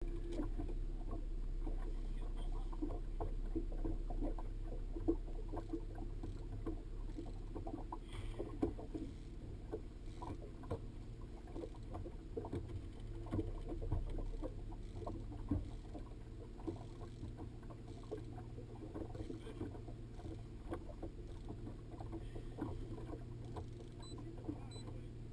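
Fishing boat on open water: a steady low rumble with many small irregular taps and slaps of water against the hull.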